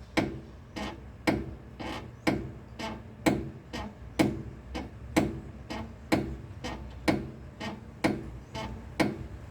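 Rear suspension control arm bushing of a 2010 Hyundai i30 creaking in an even rhythm, about two creaks a second. It is the door-like creak heard over speed bumps, and the mechanic puts it down to this bushing.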